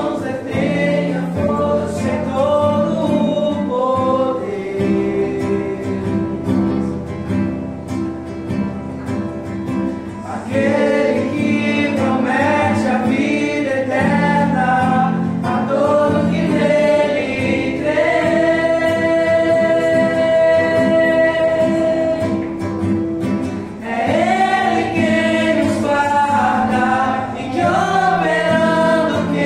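Voices singing a gospel worship song to acoustic guitar, with one long held note about two-thirds of the way through.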